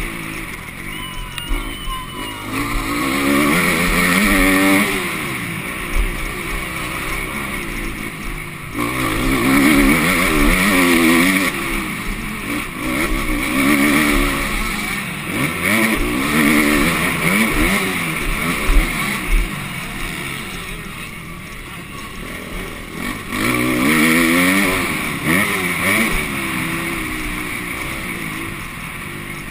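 A motocross bike's engine heard from on the bike, revving up hard and dropping off again and again as it accelerates, shifts and backs off around the dirt track. Several long rises in pitch and loudness, about four seconds in, around ten seconds, mid-way and again near twenty-four seconds.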